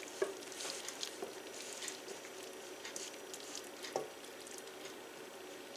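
Thick, creamy broccoli and cheese casserole mixture being scraped out of a stainless steel bowl into a glass baking dish: soft wet squelching and scraping, with a light knock just after the start and another about four seconds in.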